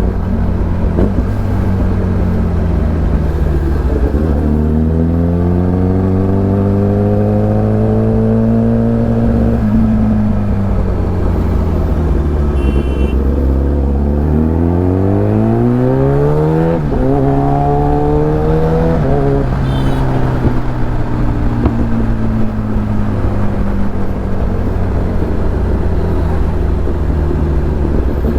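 Kawasaki ZX-10R's inline-four engine heard onboard while riding: the revs climb, ease off, then climb hard again with a brief break about two thirds of the way up, like a gear change, before dropping back to a steady low cruise.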